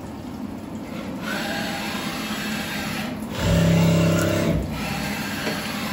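Syil X7 CNC mill running a tapping cycle, with flood coolant hissing and splashing over the aluminium work. About three and a half seconds in, a louder steady machine hum rises for about a second, then drops back.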